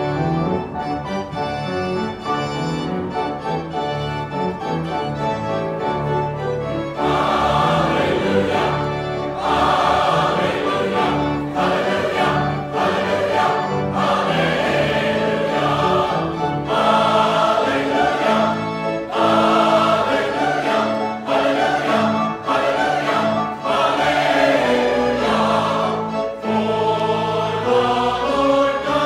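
A large choir singing Christmas music with instrumental accompaniment. The accompaniment starts at once, and the voices come in about seven seconds in, making the sound fuller and louder.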